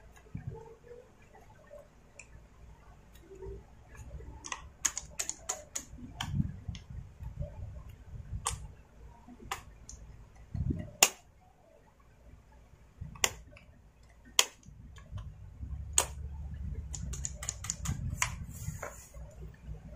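Sharp, irregular plastic clicks and light rattles as small parts and wires of a Stihl MS250 chainsaw are handled and fitted near the carburettor, with a few dull knocks in between.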